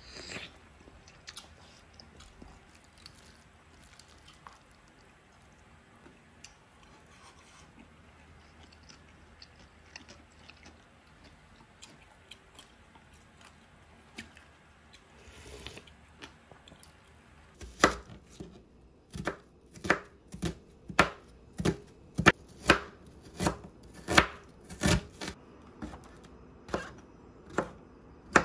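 Kitchen knife slicing king oyster mushrooms on a cutting board: a run of about fifteen sharp knocks, roughly two a second, starting a little past halfway through. Before that there are only faint scattered clicks.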